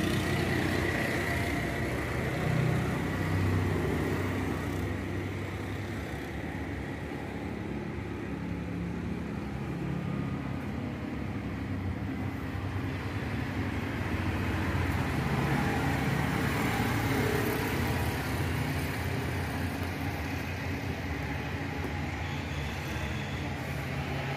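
Eicher 551 tractor's diesel engine running at a steady idle, a low even hum that swells and fades a little over several seconds.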